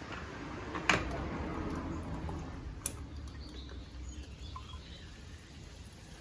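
A light metallic clink about a second in and a smaller one near three seconds, over faint trickling as engine oil drains from the opened oil-filter housing of a motorcycle.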